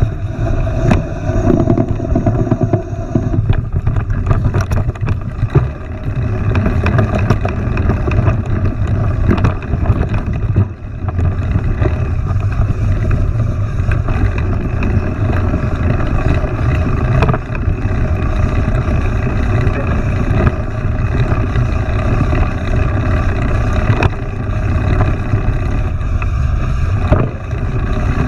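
Mountain bike riding along a trail: a steady low rumble, with frequent knocks and rattles from the bike over bumps.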